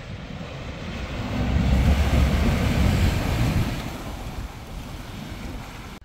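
A 4WD wading through a shallow creek crossing: water rushing and splashing around its wheels over a low rumble, swelling loudest in the middle and fading toward the end, with wind buffeting the microphone.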